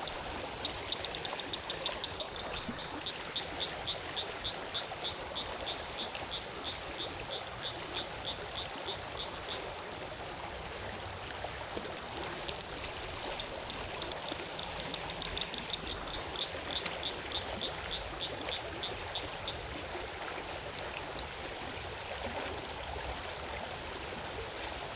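Small creek water running steadily. Over it, a high, rapid ticking at about three or four a second comes in two runs, one through the first third and a shorter one in the middle.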